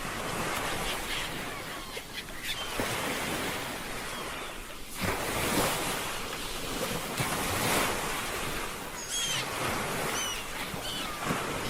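Ocean surf washing onto a shore, with waves breaking and swelling louder about five and seven seconds in. A few short, high bird calls come through in the second half.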